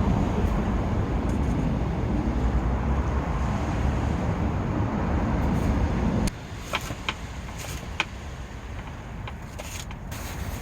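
Strong gale-force wind buffeting the microphone with a heavy, gusting rumble, which cuts off abruptly about six seconds in. It gives way to a quieter background with a few sharp clicks.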